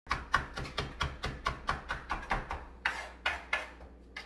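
Large kitchen knife rocking through fresh cilantro on a cutting board, mincing it fine: a quick run of chopping taps about four a second, thinning out to a few spaced strokes after about two seconds.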